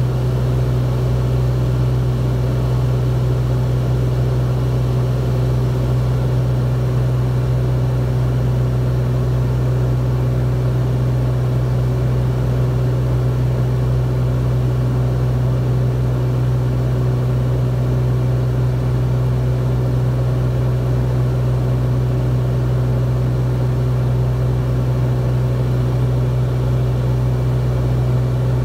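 Cessna P210N's turbocharged six-cylinder engine and propeller droning steadily at cruise power, 2500 rpm, heard inside the cockpit.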